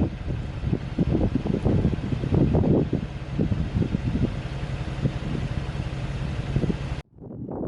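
Wind buffeting the microphone in irregular gusts over a steady low mechanical hum. The sound cuts off abruptly about seven seconds in, and quieter gusts then resume.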